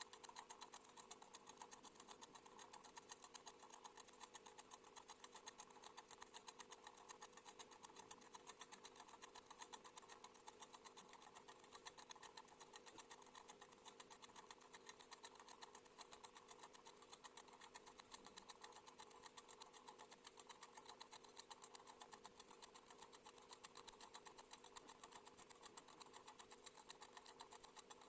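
Cat-shaped wind-up mechanical kitchen timer ticking faintly as it counts down, sped up so the ticks run together in a fast, even stream.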